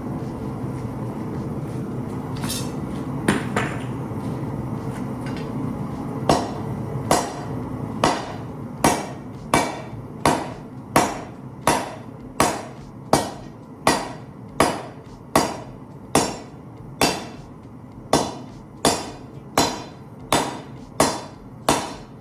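Hand hammer striking rebar on an anvil while forging a gambrel: a few scattered blows, then about twenty steady, evenly paced strikes a little under a second apart, each one ringing briefly.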